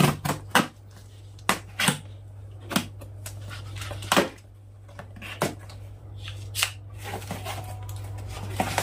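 Kitchen knife slitting packing tape on a cardboard parcel, then the cardboard flaps pulled open: a string of sharp, irregular crackles and knocks of tape and cardboard. A steady low hum runs underneath.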